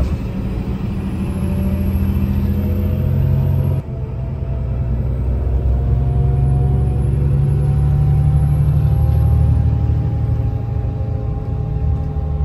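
Bus engine accelerating, heard from inside the bus: a loud low hum rising in pitch, a brief drop about four seconds in as it changes gear, then rising again.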